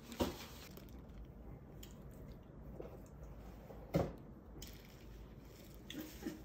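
Hands handling new clothing and its cardboard tags: soft fabric rustling with a few sharp crinkles and taps, the loudest about four seconds in.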